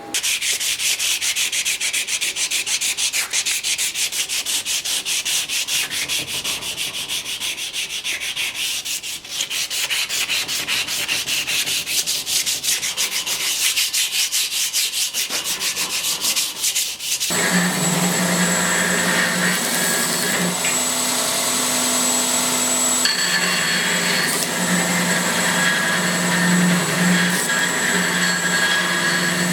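Steel blade being worked by hand with fast, rhythmic abrasive rubbing strokes. A little over halfway through, the strokes stop and an electric power tool's motor starts and runs steadily with a whine.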